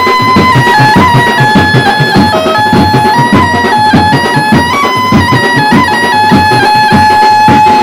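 Background music: a stepping melody over a steady beat, ending on one held note.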